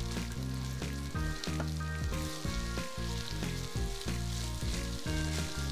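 Ground pork frying in a pan, a steady sizzle with small crackles, under background music whose low notes are the loudest sound.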